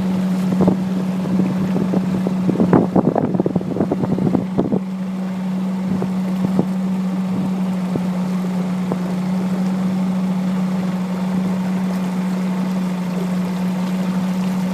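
Motorboat engine running with a steady drone over wind and water noise, with a brief cluster of knocks or slaps about three to five seconds in.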